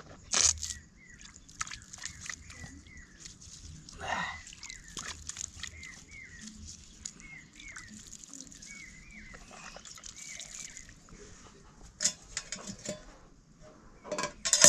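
A man rinsing his mouth with water from a steel pot: water splashed and spat out about half a second in and again at about four seconds. Short chirping calls repeat in the background, and a few sharp clinks come near the end.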